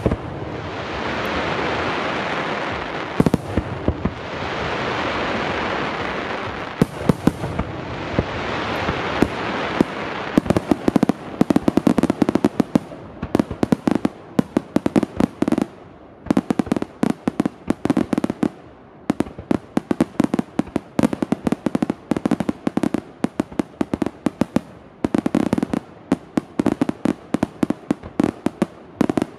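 Aerial fireworks shells bursting. For the first ten seconds or so the bursts come in swelling waves of crackling hiss with a few sharp bangs; after that comes a dense, rapid string of loud bangs.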